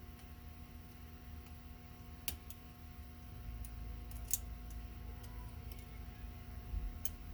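Faint, scattered light clicks and taps of small tools and metal parts, with a low handling rumble, as a small toy-train accessory's motor and gearbox housing is taken apart by hand.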